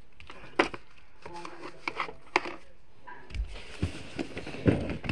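Scattered light knocks and clicks with rubbing and handling, heaviest a little over three seconds in and again near the end.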